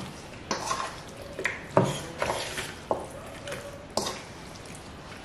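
A kitchen utensil stirring and knocking against a pot or dish during food preparation, giving a series of irregular sharp clinks and scrapes.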